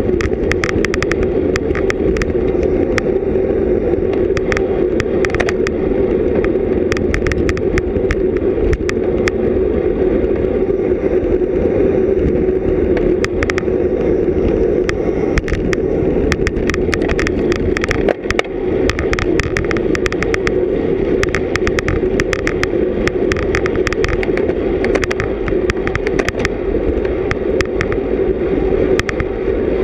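Steady rush of wind and road noise from a road bicycle ridden at race speed, picked up by a GoPro Hero 3+ action camera, with many sharp clicks and rattles scattered throughout. The rush dips briefly about two-thirds of the way in.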